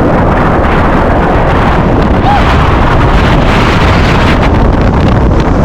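Heavy wind buffeting the microphone of a skier going fast downhill: a loud, steady rush of wind noise.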